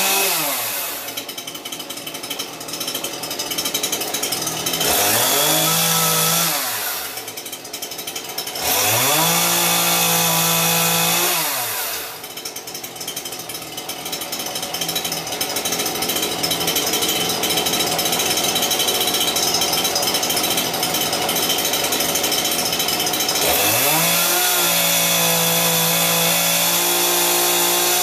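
Stihl MS150 TC-E top-handled chainsaw's small two-stroke engine being revved up and let fall back to idle several times, with long stretches at high revs. Near the end it is cutting into a wooden branch.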